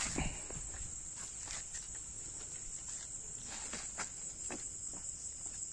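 Crickets chirping in a steady, high continuous trill, with a few soft scuffing footsteps on concrete.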